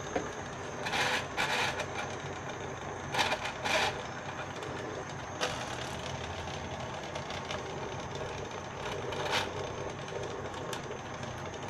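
Pot of black-eyed pea stew at a rolling boil, bubbling steadily, with a few brief louder noises over it.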